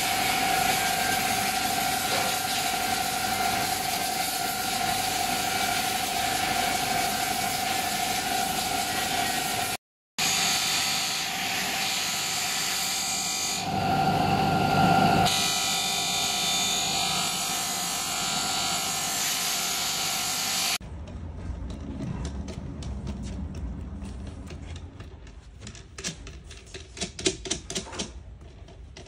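Bench grinder wheel polishing the steel tube of a magnetic bar, running with a steady hiss and whine while the tube is pressed against it. About twenty seconds in it gives way to a quieter low hum with light clicks and taps.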